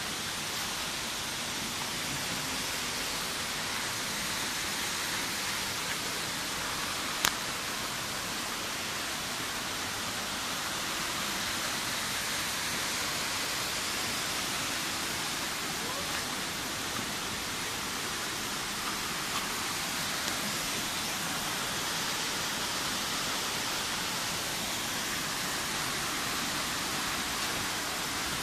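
Steady rushing of a river's cascades over rocks, with one sharp click about seven seconds in.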